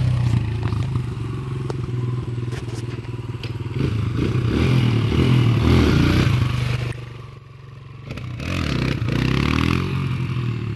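Kawasaki KLX140G's air-cooled single-cylinder four-stroke engine revving up and easing off repeatedly as the dirt bike is ridden across grass and pulled into a wheelie. Past the middle the engine drops to a low idle for about a second, then revs up again.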